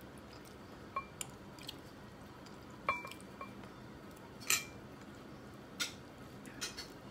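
A person eating with her hands: chewing and short mouth smacks, with light clicks of fingers and food against a plate. About half a dozen brief sharp sounds are spread through, the loudest about halfway.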